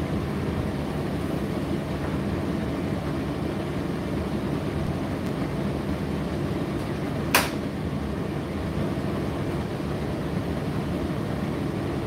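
Indesit IDC8T3 condenser tumble dryer running mid-cycle: a steady low hum of its motor and turning drum, with a single sharp click a little past halfway.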